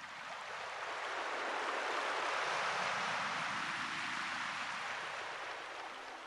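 Stadium crowd roaring, a steady wash of noise that swells to a peak about halfway through and then fades.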